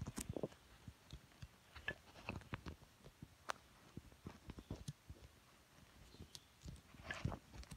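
Faint handling noise: scattered small clicks and crackles from hands handling a clock radio's power cord and packaging, a little busier near the end.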